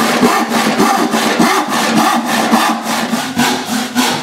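Handsaw cutting through a wooden board: a steady run of quick, even rasping strokes as the teeth bite the wood.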